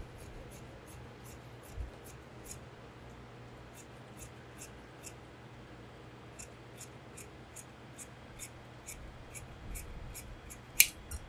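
Large tailor's shears cutting through suit trouser cloth along a chalk line, a steady run of crisp snips about three a second, with one sharper, louder click near the end.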